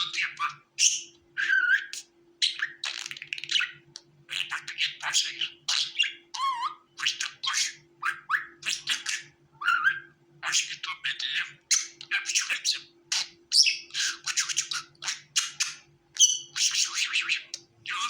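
Budgerigar chattering and warbling: a rapid, unbroken run of short chirps, squeaks and whistled notes.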